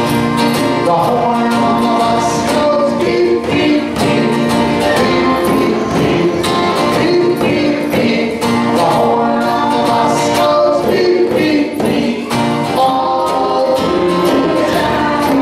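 Live music: a djembe and tall hand drums struck by children and an adult in a loose beat, with acoustic guitars and singing.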